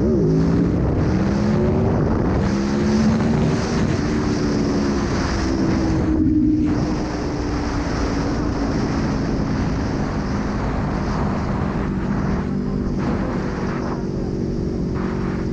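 Aprilia Tuono V4 1100's V4 engine under way: the revs drop right at the start, climb again over the next few seconds, then settle to a steady cruise with the pitch easing slowly. Wind rushes over the microphone throughout.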